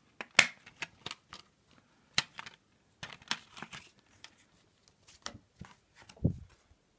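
A plastic Blu-ray case and its paper booklet being handled: scattered clicks from the case and rustles and flicks as the booklet's pages are turned, the sharpest click about half a second in.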